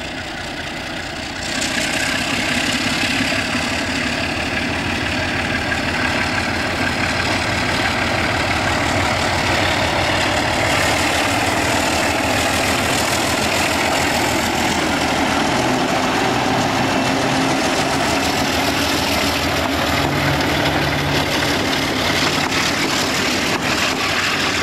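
Alco 12-251 diesel engine of a CP Alco road-switcher locomotive running steadily, then opening up about a second and a half in and working hard under power as the locomotive pulls a passenger train away.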